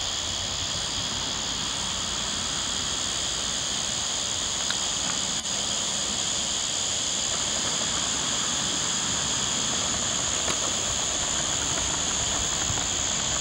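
Steady, high-pitched drone of insects from the bushland, unbroken throughout, over a low rumble.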